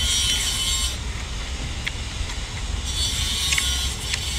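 A person eating with their mouth close to the microphone: slurping and chewing octopus tentacles and noodles, with a few soft smacking clicks. A steady low rumble runs underneath.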